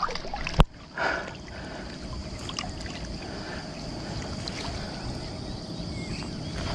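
Steady low rushing noise at a pond's edge, with one sharp knock about half a second in.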